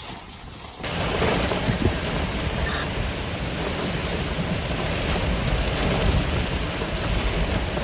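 Heavy wind-driven rain from a strong thunderstorm, with the gusty wind rumbling low on the microphone; the downpour gets suddenly louder about a second in and then stays steady.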